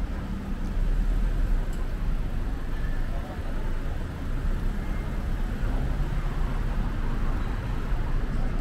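City street traffic: a car's engine and tyres as it creeps along the street close by, over a steady low rumble of wind on the microphone.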